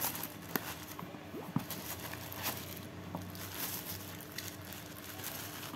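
A product box and its packing being opened and handled by hand: faint rustling with scattered small clicks and scrapes.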